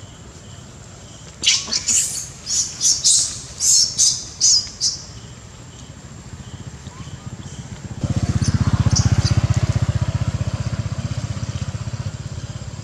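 A quick run of about ten short, shrill, high-pitched squeaky animal calls. About eight seconds in, a motor vehicle engine's low, rapidly pulsing rumble starts and keeps going.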